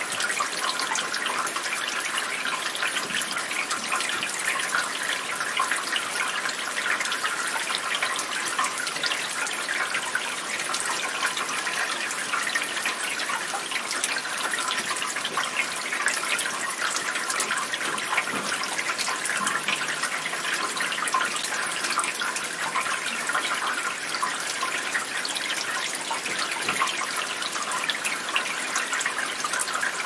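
Steady rain falling, an even hiss made of many fine drop impacts that neither builds nor fades.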